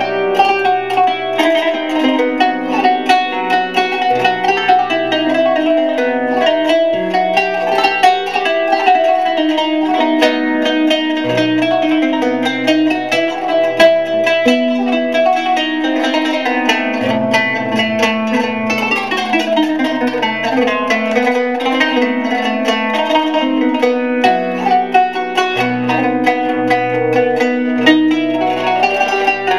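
Instrumental background music led by a plucked string instrument, playing quick runs of notes over low held bass notes.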